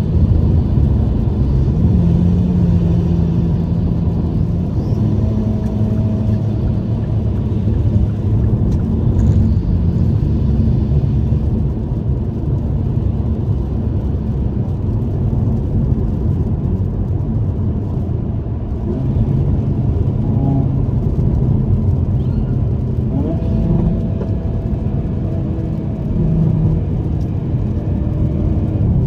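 Hyundai Kona N's turbocharged 2.0-litre four-cylinder engine cruising at highway speed, heard inside the cabin as a steady low drone mixed with tyre and road noise on wet pavement.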